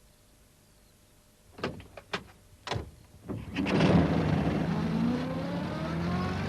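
Three sharp knocks, then a small van engine starts up and runs, its pitch slowly rising as it pulls away.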